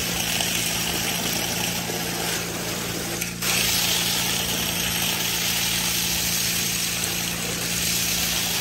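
Small motor-driven water pump running steadily, with a constant low hum under a rushing hiss of water. The sound dips for a moment about three and a half seconds in and comes back a little louder.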